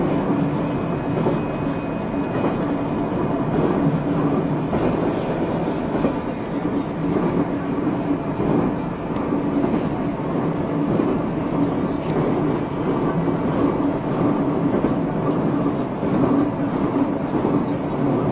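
JR Central 373 series electric multiple unit running, heard from inside the car: a steady rumble of wheels on rail with some clickety-clack. This is the F2 set, which is known for an abnormal noise.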